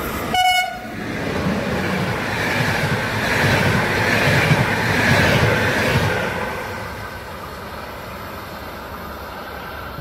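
A short train horn blast about half a second in, then a CFR InterRegio passenger train passing close by: the rumble and wheel clatter of its coaches build to a peak around the middle and fade away.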